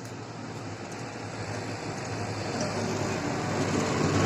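Motor vehicle noise growing steadily louder, like a vehicle approaching on the road.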